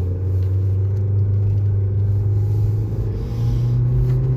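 Car engine and road noise heard from inside the cabin while driving: a steady low drone that steps up slightly in pitch about three seconds in.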